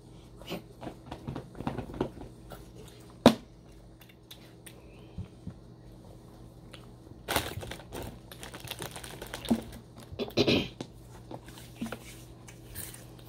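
Scattered clicks and crinkling from hands handling things at a table, with a single sharp click about three seconds in and two short bursts of crinkling later on.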